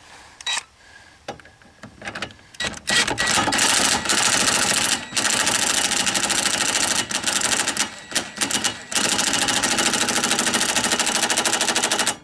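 Impact driver hammering in a rear shock absorber's mounting bolt until it seats. After a few scattered clicks it runs in several long stretches of fast rattling hammering with brief pauses, then stops abruptly.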